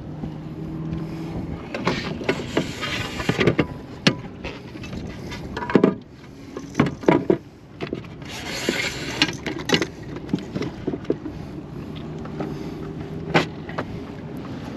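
Handling noise aboard a fishing kayak: scattered knocks and clicks against the hull and gear, with two longer stretches of rustling while a landed bass is dealt with.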